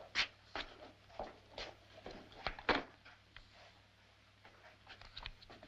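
A dozen or so irregular soft knocks and clicks over a low steady hum, the loudest about two and a half seconds in.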